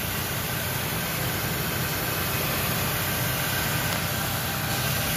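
2003 Ford Ranger's 3.0 L V6 engine idling steadily after a radiator replacement, warming up while the new cooling system is checked for leaks.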